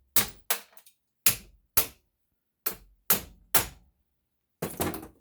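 Hammer blows on metal, about nine sharp strikes at an irregular pace, each with a short bright ring, knocking the aluminum off a copper water-heater fitting.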